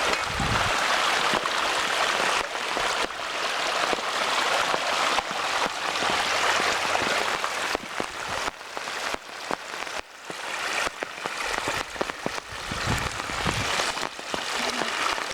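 Floodwater of a swollen creek rushing through and over a rock dam and its overflowing drain pipe, a steady hiss of fast-flowing water. A couple of brief low thuds come about half a second in and again near the end.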